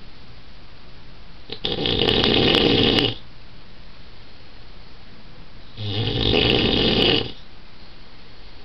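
A man snoring loudly in his sleep: two long snores, each about a second and a half, some four seconds apart.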